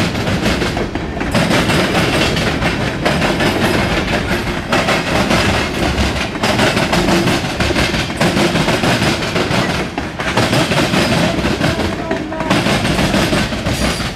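Freight cars of a CSX local train rolling past close by, their steel wheels clattering and rumbling on the rails. The sound is loud and continuous, with brief lulls every few seconds.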